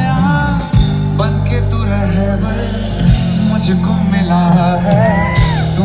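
Live amplified band music with a male singer: a sung melody over heavy bass and a steady drum beat, heard through a concert PA.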